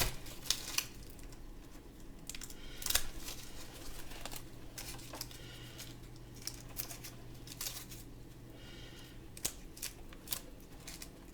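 Plastic toy packaging being handled and picked at: scattered clicks, crinkles and scrapes as a small weapon piece is worked at to free it from an action figure's packaging.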